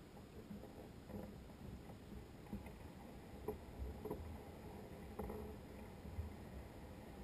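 A kayak gliding through shallow marsh water, with faint water sounds along the hull. A few soft knocks come at irregular intervals.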